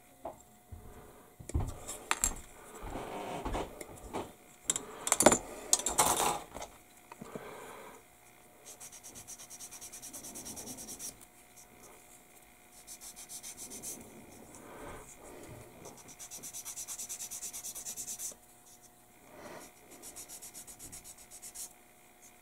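A small plastic model part being sanded with a sanding stick: runs of fast, even rubbing strokes, stopping and starting several times. Clicks and knocks of the plastic parts sprue being handled come first.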